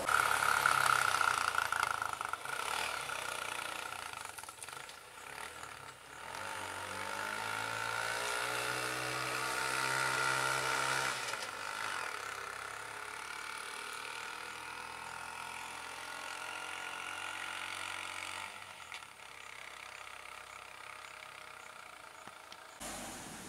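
Motor vehicle engines running close by; about seven seconds in, one engine revs up and holds a higher pitch for a few seconds, then dies away as it drives off.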